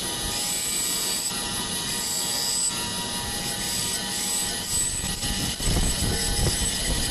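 Benchtop band saw running steadily with a constant high whine, its blade cutting a small piece of thin wood. The sound gets heavier and fuller about five and a half seconds in.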